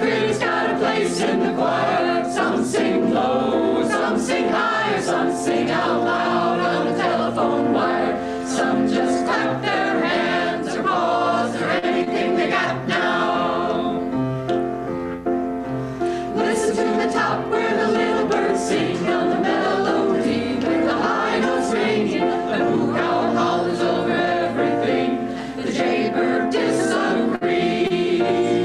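A mixed choir of men's and women's voices singing a song together, continuously and at a steady level.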